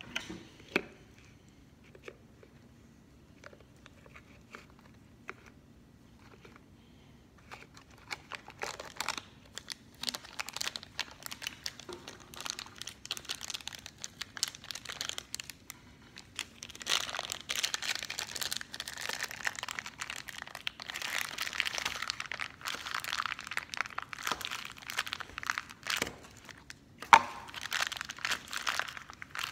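Small plastic toy wrapper being crinkled and torn open by hand: a few light taps at first, then steady crackling from a few seconds in that gets louder in the second half, with one sharp snap near the end.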